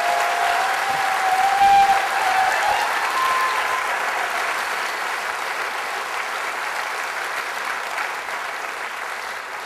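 Audience applauding in a large hall, with a few held calls rising over the clapping during the first three seconds. The applause slowly dies away.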